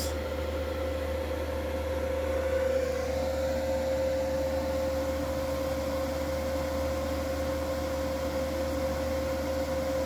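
MPP Solar inverter running, a steady low hum with a steady high whine over it that grows a little stronger about three seconds in.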